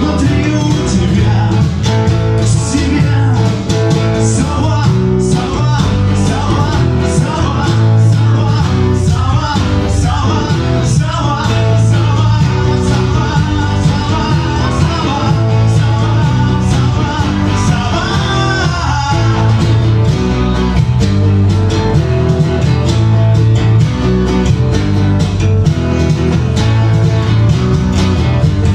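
Live rock band playing: a male vocalist singing over electric guitar, bass guitar and a steady percussion beat, the voice falling away in the last few seconds.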